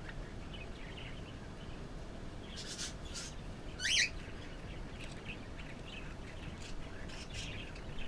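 Budgerigars chirping now and then, with a pair of short rasping calls and then one louder, sharp chirp that drops in pitch about halfway through, over steady low background noise.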